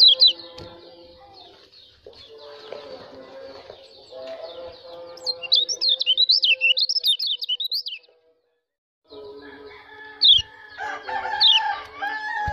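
White-eye (pleci) calling: quick high chirps, then a burst of rapid high-pitched twittering that stops abruptly about eight seconds in. After a second of silence come more sharp chirps over a steady lower tone. This is the fast 'ciak' calling that bird-keepers play to rouse caged white-eyes.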